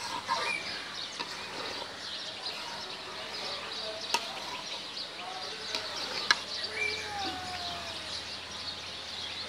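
Outdoor rural ambience: a steady high chirring of insects, with a few short sliding calls and two sharp clicks, one about four seconds in and a louder one a little past six seconds.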